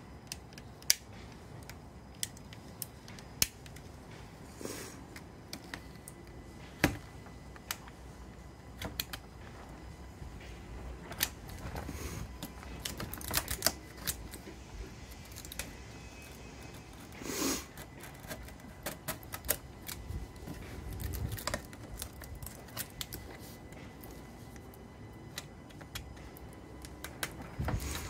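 Snap-off utility knife cutting thin plywood by hand: irregular sharp clicks and short scrapes as the blade picks through the CNC cut lines the bit did not finish.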